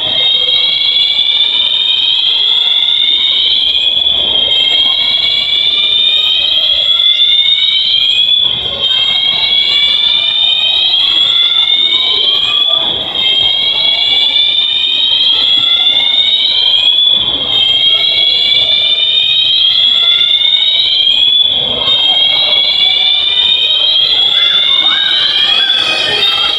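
Mall fire alarm sounders going off loudly: a whooping tone that sweeps upward about once a second, over and over, with a short break every few seconds.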